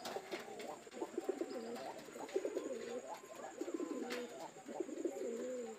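Domestic pigeons cooing, with several rolling coos overlapping one another throughout.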